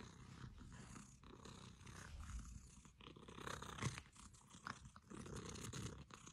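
Domestic cat purring faintly, a low steady rumble with a few soft clicks.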